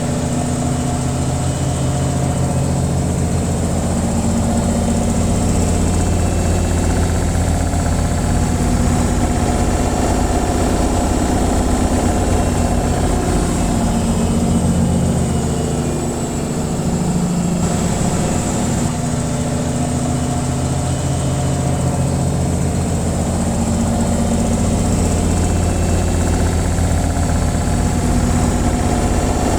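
Washing machine on its spin cycle: a steady motor hum with a deep drone, dipping slightly a little past halfway.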